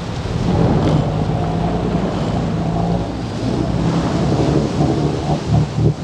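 Sport-fishing boat's engines rumbling low and steady under the loud rush of white water churning and splashing at the stern, with wind buffeting the microphone.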